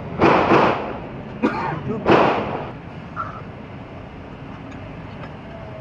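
A steel flat file rasping and knocking against metal three times in quick succession, each a short rough scrape, the last two close together about a second and a half in.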